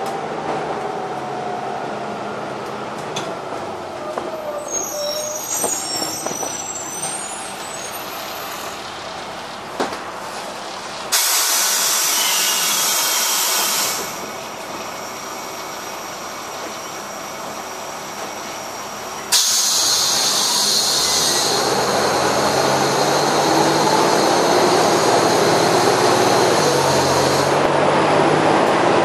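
City bus running, heard from inside, with engine and road noise and some whine. Two sudden sharp air hisses from the bus's pneumatic system come about 11 s in, lasting about three seconds, and again about 19 s in. After the second, the engine gets louder and rises in pitch as the bus pulls away.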